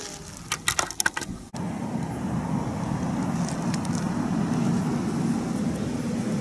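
A quick run of sharp cracks in the first second and a half, then, after an abrupt change, a steady low rumble.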